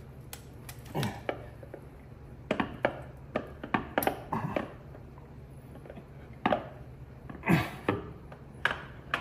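A heavy flywheel knocking and scraping against the crankshaft end of a Porsche 911 engine as it is rocked and shifted to find its locating dowel: irregular metallic clunks and clicks, a few at a time, over a steady low hum.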